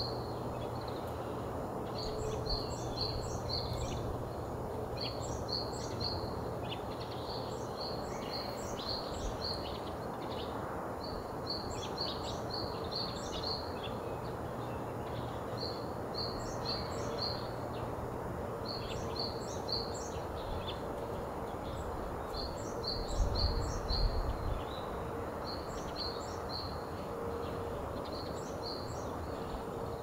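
Japanese tit singing: phrases of four to six quick, high two-part notes, repeated every second or two over a steady low hum. A brief low rumble comes about three-quarters of the way through.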